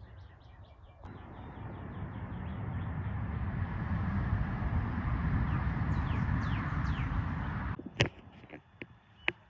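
Wind rushing over the microphone, building up and then cutting off sharply, while a bird calls a few quick falling chirps. Two sharp clicks come near the end.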